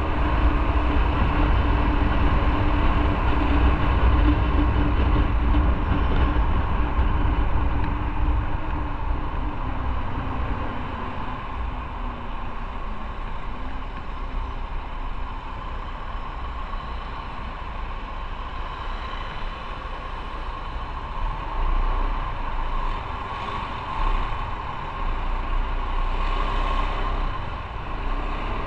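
Motorcycle running on the road, with a heavy low rumble for the first eight seconds or so that then eases to a steadier, quieter running sound.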